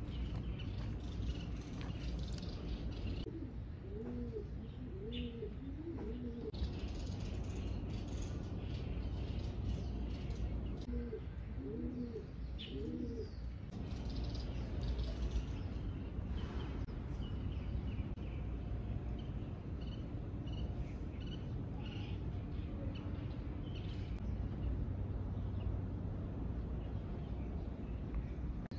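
A dove cooing in two phrases of three low rising-and-falling coos, about 4 seconds and 11 seconds in, over scattered chirps of small birds and a steady low background rumble.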